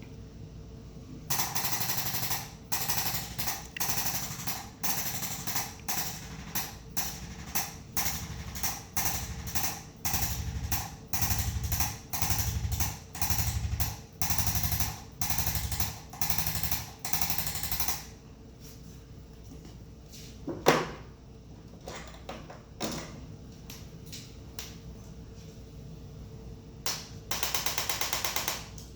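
Handheld electric chiropractic adjusting instrument firing short bursts of rapid thrusts, a burst about every second. One sharp knock partway through.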